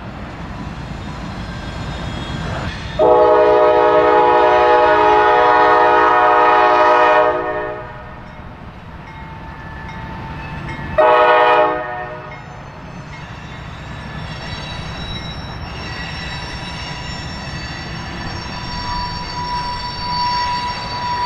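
Diesel freight locomotive's air horn: one long blast of several steady tones together, then a short blast a few seconds later, over the rumble of rolling freight cars. After that come thin, high, steady squeals of wheel flanges grinding on curved track.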